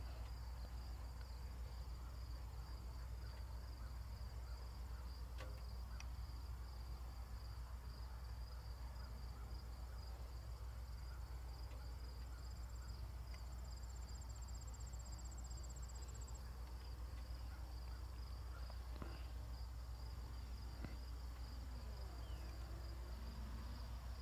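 Insects chirping steadily in a continuous high pulsing chorus, with a higher trill joining for a few seconds in the middle, over a low steady rumble.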